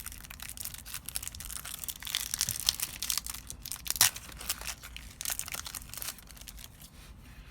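Crinkling and crackling of a trading-card booster pack wrapper being handled, busiest in the middle, with one sharp crackle about four seconds in.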